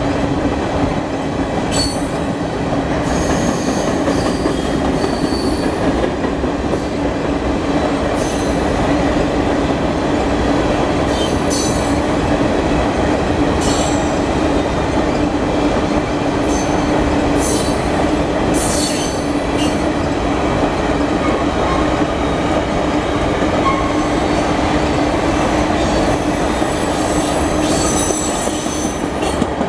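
Freight train of potash hopper cars rolling past with a steady rumble of wheels on rail. High-pitched flange squeals break through again and again.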